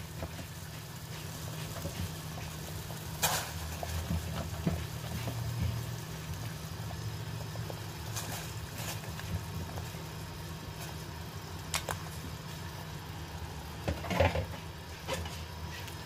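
Pot of pork bone and papaya soup at a rolling boil, bubbling steadily over a low steady hum, with a few sharp clicks now and then.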